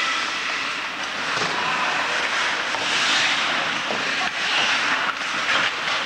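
Ice hockey in play: a steady hiss of skate blades on the ice, with a few short sharp clacks of sticks and puck in the last couple of seconds.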